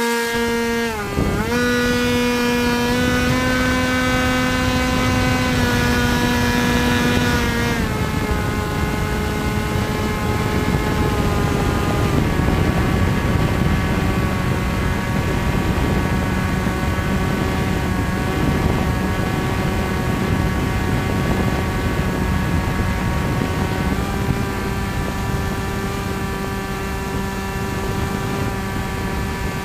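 Electric motor and pusher propeller of a Bixler foam RC plane in flight, heard from the camera on its nose: a steady whine with wind rushing over the microphone. The pitch dips about a second in, then drops lower around eight seconds in and again a few seconds later.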